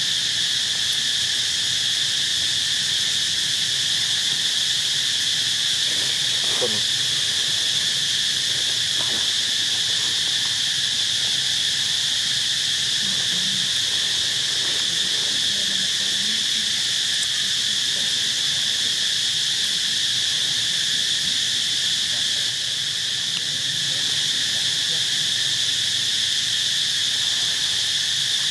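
Steady chorus of insects in forest: a continuous high-pitched drone that holds level without a break.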